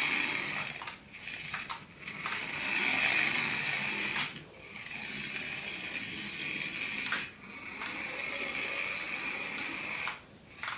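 Tiny electric motor and plastic gears of a mini RC car whirring at a high pitch as it drives, in several runs with short breaks between them.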